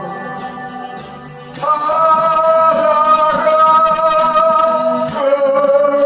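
A man singing a slow Korean folk ballad over instrumental backing. He holds one long note for about three and a half seconds and moves to another near the end.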